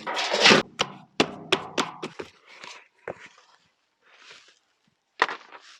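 A 10-litre plastic potato pot being knocked and tipped out: a string of sharp thuds in the first two seconds, then soil rustling, and one more knock near the end.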